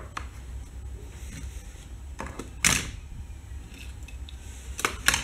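Hands handling hard plastic toy race track parts and small die-cast toy cars on a wooden table: a loud plastic clack about two and a half seconds in, and a couple of lighter clicks near the end.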